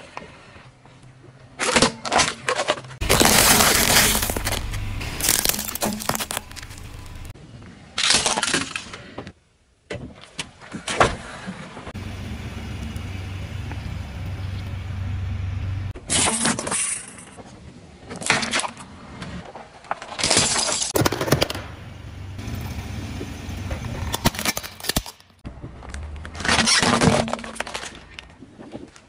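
A car tyre rolling over and crushing a run of objects one after another: repeated sharp crunching and cracking bursts, with a low rumble of the slowly rolling car between them.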